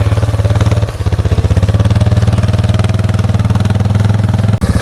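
Four-wheeler (ATV) engine running loud and steady close by, a fast low chugging, with a brief dip about a second in and again near the end.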